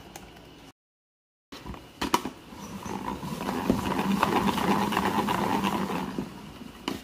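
Salad spinner: the lid clicks into place, then the basket of washed cherry tomatoes spins with a steady whirring that swells and fades away near the end.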